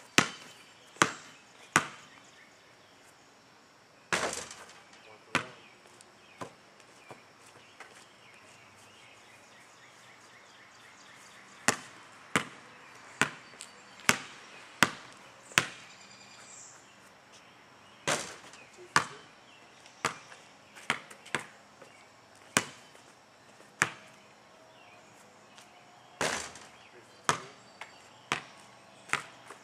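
Basketball bouncing on an asphalt driveway, in runs of sharp bounces a little under a second apart, with a few louder, longer-ringing hits as shots strike the hoop.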